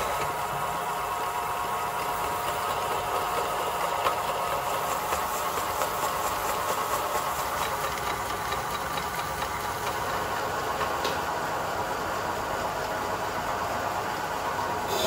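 A motor-driven workshop machine running steadily, with a constant mid-pitched hum.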